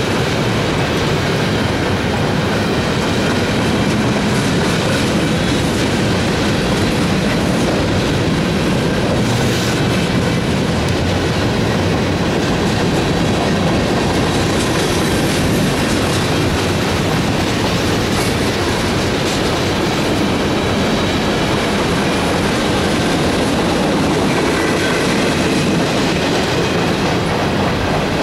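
Freight train cars rolling steadily past a grade crossing: a continuous loud rumble of steel wheels on rail with rhythmic clickety-clack over the rail joints.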